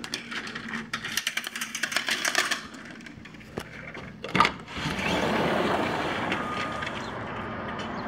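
Vertical blind slats clattering rapidly as they are pushed aside, then a single knock from the sliding balcony door. After the knock a steady wash of outdoor noise comes in through the open door.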